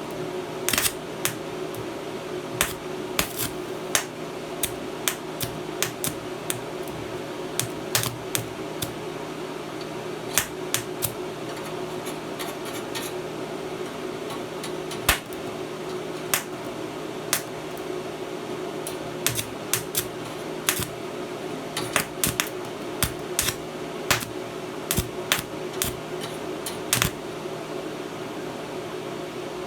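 Arc welding with a 250 A DC inverter welding machine: an irregular crackle of sharp pops over a steady hiss, with a constant hum beneath.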